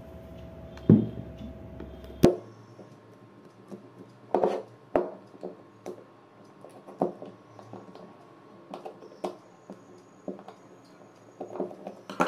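Screwdriver and hands working on a coffee machine's plastic vibration pump to open it: scattered clicks and knocks of metal on plastic and on the wooden tabletop. The two loudest come about one and two seconds in, with a quick cluster near the end.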